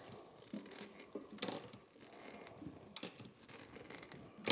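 Viking Arm handheld lever jacks being squeezed to raise a barbell loaded to about 495 pounds: a few short, faint scraping clicks from the squeeze-lever mechanism, the loudest near the end.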